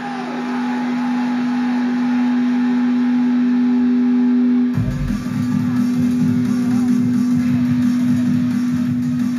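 Music with guitar: a loud, steady held low note, joined a little under halfway through by a denser, pulsing part.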